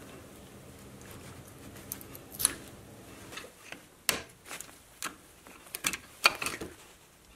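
Needle-nose pliers and a flat screwdriver clicking and scraping against a disc brake caliper while the pad wear sensor is unplugged and pried out. Scattered sharp metallic clicks, mostly in the second half, the loudest about six seconds in.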